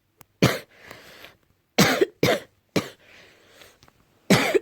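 Coughing fit: about six short, hard coughs, some coming in quick pairs, with noisy breaths in between. The uploader puts the morning cough down to allergy.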